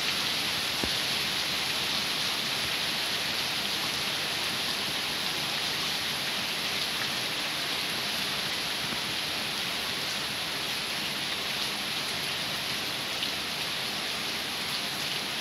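Heavy rain pouring steadily, a dense, even hiss of rain falling on pavement and ground.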